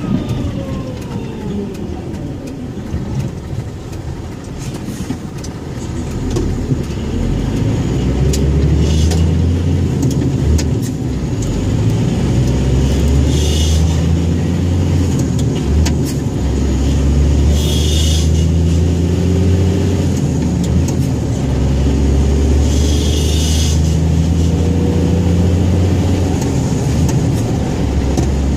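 Scania 114G 340 truck's diesel engine running, its note falling at first, then growing louder about six seconds in with a deep rumble whose pitch rises and falls as the revs change. Four short hisses come through along the way.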